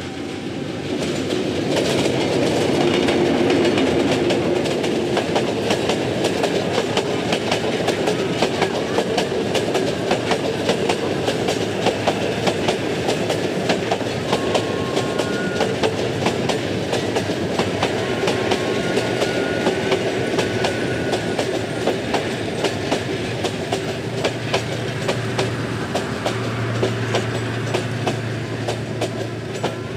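Bangladesh Railway Bijoy Express passenger train passing close by. The diesel locomotive swells up in the first few seconds. A long run of coaches follows, with a steady clickety-clack of wheels over rail joints.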